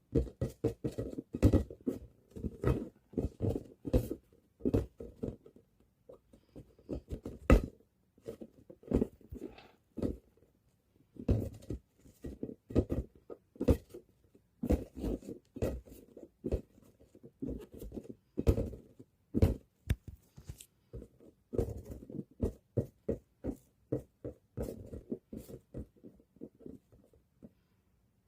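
A ball being bounced again and again, making dull thuds that come in uneven runs of quick bounces with short pauses between.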